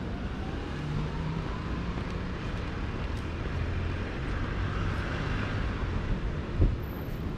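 City street ambience: a steady low rumble of road traffic, with a single thump about six and a half seconds in.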